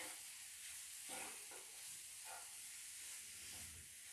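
Grated radish and peas frying in a nonstick pan: a faint, steady sizzle, with a few soft scrapes of a metal spoon stirring in the spice powders.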